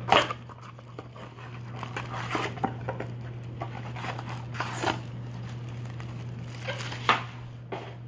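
A cardboard trading-card blaster box is torn open and its foil-wrapped card packs handled, giving irregular crinkling, rustling and scraping with a few sharp clicks, the loudest about the first moment. A steady low hum runs underneath.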